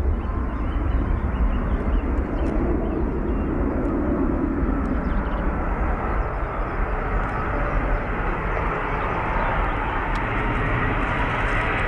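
Jet airliner engines running: a steady low rumble and rushing noise, with a faint steady whine coming in near the end.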